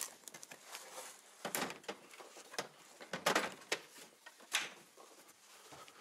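Irregular knocks and clicks of dust-extraction equipment being handled and moved, several sharp strokes at uneven spacing, the loudest about halfway through.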